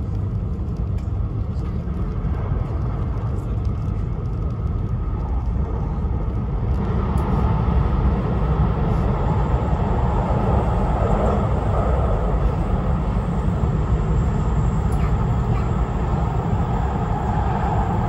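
Tohoku Shinkansen Hayabusa train running along the line, heard from inside the passenger cabin: a steady low rumble of wheels and running gear. About seven seconds in, the noise grows louder and fuller.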